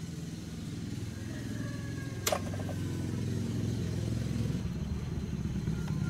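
An engine running steadily with a low hum, with one sharp click a little over two seconds in.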